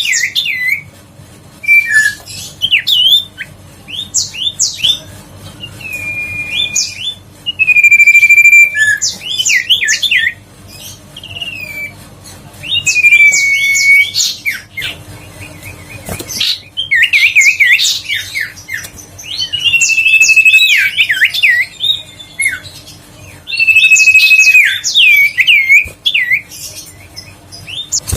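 Common iora singing loud repeated phrases, roughly every four seconds. Each phrase opens with a long level whistle and breaks into quick rising and falling notes. A faint steady hum runs underneath.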